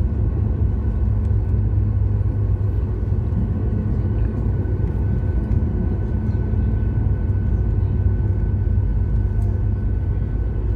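Jet airliner's engines heard from inside the cabin as the plane taxis on the ground: a steady low drone with a thin, steady high whine over it.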